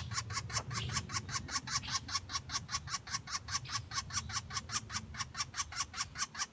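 Woodpecker pecking on wood: a steady run of sharp taps, about seven a second.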